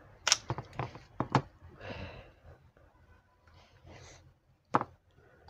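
Sharp plastic clicks and knocks as a Baofeng UV-82 handheld radio is taken apart: the battery pack comes off and the antenna is unscrewed. There is a single click near the start, two close together about a second in, and a loud one near the end, with a couple of soft breaths between.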